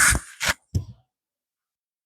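A few short rustling knocks, the loudest at the start, then the sound cuts off abruptly to dead silence about a second in.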